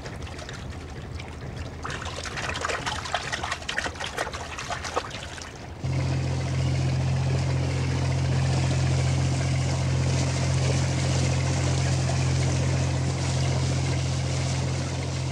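Water splashing and pouring, then about six seconds in a sudden change to a wooden Maldivian dhoni's engine droning steadily under way over the rush of its wake.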